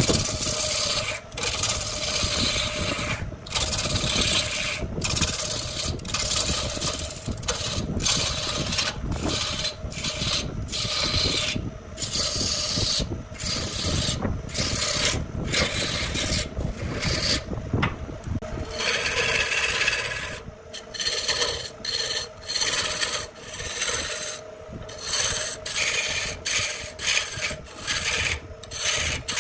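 A turning tool cutting into a spinning cylinder of stacked, glued wood discs on an electric wood lathe. The cutting makes a rough, rasping scrape that breaks off for brief moments about once a second. Under it runs a steady hum from the lathe.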